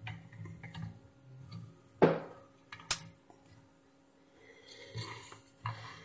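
Fingers handling a small plastic mini-USB plug and its cable, with light scrapes and taps, and two sharp clicks about two and three seconds in.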